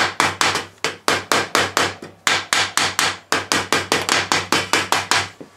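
Mallet tapping the end cap of a motorcycle race-can silencer home, a rapid run of sharp knocks on the metal about four to five a second. There is a brief pause about two seconds in, and the knocks stop shortly before the end. This is the cap being seated after the baffle has been repacked.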